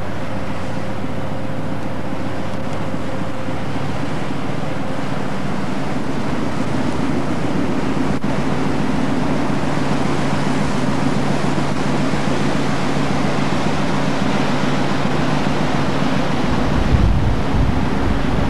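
Steady rush of wind on the microphone and sea wash, over a low steady drone of ship's engines. A gust buffets the microphone near the end.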